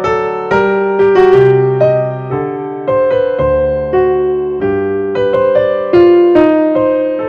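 Background piano music: a gentle melody of single struck notes, each fading after it is played.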